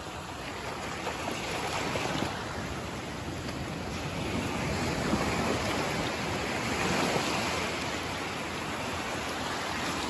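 Small waves washing up and draining back over wet sand at the water's edge, a steady rush of surf that swells louder a few times.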